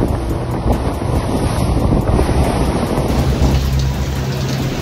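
Wind buffeting the microphone over the rush of wake and spray along the hull of a motor yacht under way in a rough sea, with the steady low hum of its engines running at cruise; the hum comes through more clearly about three seconds in.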